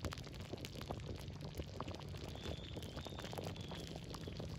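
Thick milk and rice-flour dudh pitha simmering in a kadhai, a steady bubbling with many small pops as the cooked, thickened mixture boils.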